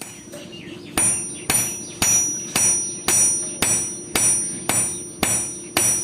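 Hand hammer striking the steel of an old file on an anvil as it is forged into a knife blade: a steady run of blows about two a second, starting about a second in, each with a bright metallic ring.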